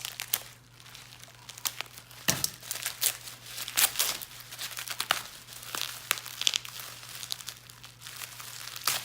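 Packing material crinkling and crackling as it is unwrapped by hand, in irregular sharp crackles.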